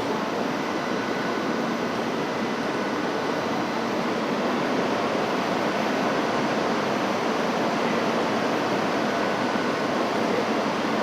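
Steady rushing noise of a standing electric train's equipment and blowers, with a faint steady high tone held over it.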